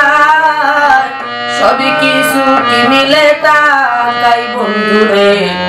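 Woman singing a Bangla folk song in long, sliding held notes, accompanied by a harmonium's steady sustained chords.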